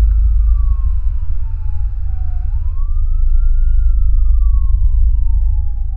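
Emergency vehicle siren wailing: its pitch rises quickly and then falls slowly, twice, over a loud steady low rumble.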